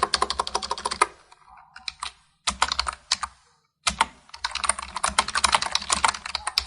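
Fast typing on a computer keyboard: a quick run of key clicks, a pause, a short burst, another brief gap, then a longer dense run of keystrokes.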